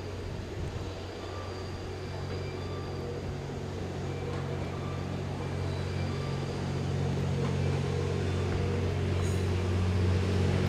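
An 87 series diesel-electric sleeper railcar approaching at low speed, its engines giving a steady low drone that grows louder as it draws near.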